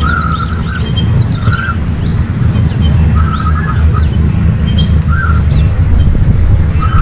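Bird chirping in short clusters roughly every one and a half seconds, over a steady low rumble.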